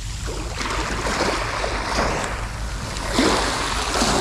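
Surf washing on the shore with wind on the microphone, a rushing noise that swells and gets louder about three seconds in.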